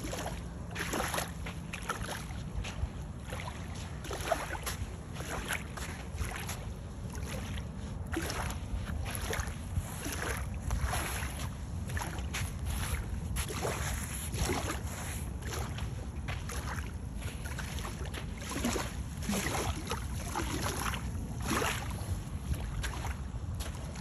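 Steady low rumble of wind and sea on a shoreline, with irregular soft crunching swishes about once a second.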